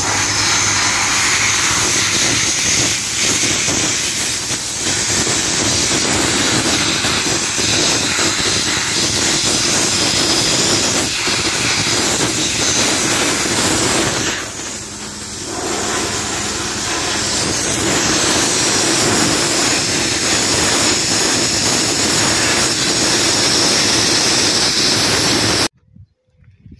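Sandblaster running: a loud, steady hiss of compressed air and abrasive blasting through the nozzle. It eases off briefly about halfway through, then resumes and cuts off suddenly near the end.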